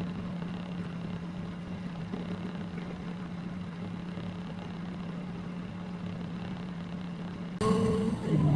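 A motor engine running steadily with a low hum. Near the end the sound changes abruptly and gets louder.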